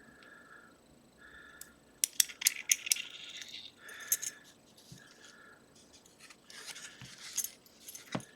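Small metal lock tools and parts clicking and clinking as the padlock is handled for disassembly, with a quick run of sharp clicks about two seconds in and a few more scattered later.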